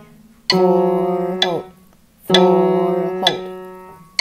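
Piano playing a two-note doorbell-style "ding-dong", a higher note held and then a lower one, twice over, each note ringing and fading.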